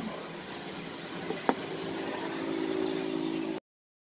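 Steady hum of a vehicle engine running, with faint steady tones that grow stronger in the second half and a single sharp click about one and a half seconds in; the sound cuts off abruptly near the end.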